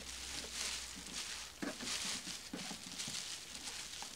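Clear plastic wrapping bag crinkling and rustling as it is worked off a hard-sided suitcase, with a couple of faint knocks from handling the case.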